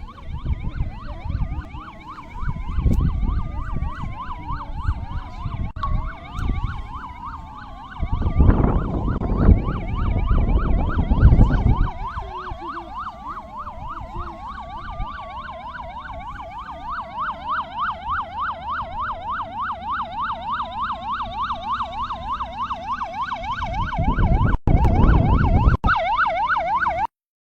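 Two emergency-vehicle sirens sounding at once, one in a fast yelp and the other in a slower rising-and-falling wail, over a low rumbling noise that swells loudly about eight to twelve seconds in and again near the end.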